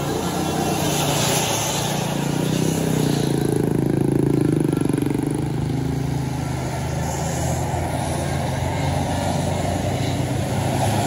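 A bus passing on the road with its engine running, growing louder to a peak about four to five seconds in, then easing off into a steady engine hum.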